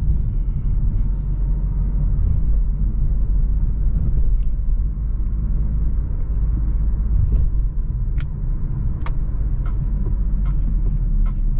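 Jeep Avenger 1.2 turbo petrol on the move: a steady, loud low rumble of engine and road noise, with a few light clicks in the second half.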